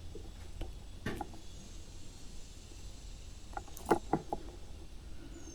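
Faint clicks and light rustles of fishing line and a small treble hook being handled while a knot is snugged down, with a cluster of sharp ticks near the end over a low steady hum.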